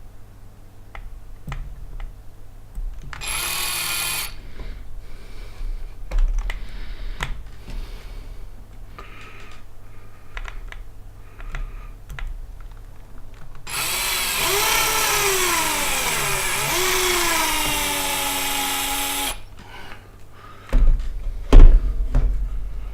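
Small power drill with a 2 mm bit drilling a hole through the printer's toothed Y-axis belt: a one-second run, then a run of about six seconds whose pitch sags and recovers as the bit bites. Small clicks between the runs, and loud knocks near the end.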